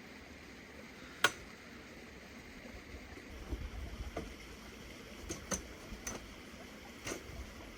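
A steady faint hiss with one sharp click about a second in, then several softer clicks and low knocks later on.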